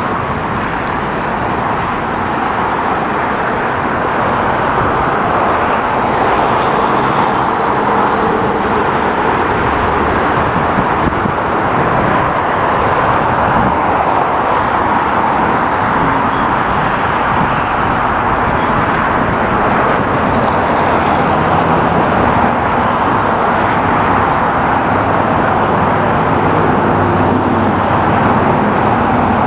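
Steady jet engine noise from airliners, with faint low engine tones coming and going.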